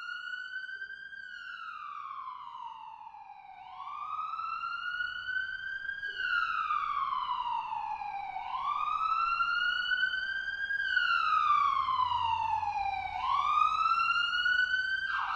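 Emergency vehicle siren sounding in a wail, its pitch rising quickly and falling slowly about every five seconds, growing louder as it comes closer, then switching to a fast warble at the very end.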